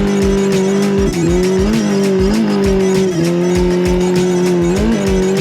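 A car engine held at high revs during a drift. Its pitch stays mostly steady, with brief blips of throttle and a step down about three seconds in. Background music with a steady beat plays underneath.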